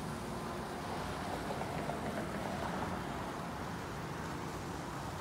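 Steady outdoor ambient noise heard from a high balcony, an even rumble and hiss with no distinct events.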